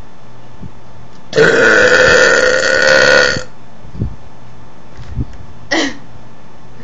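A woman burping on purpose: one loud burp about two seconds long, followed by a few small hiccups, the last with a falling pitch near the end.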